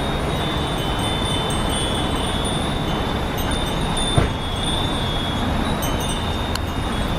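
Nanbu ironware cast-iron wind chimes ringing with high, lingering tones over a steady rushing background. A single short thump about four seconds in.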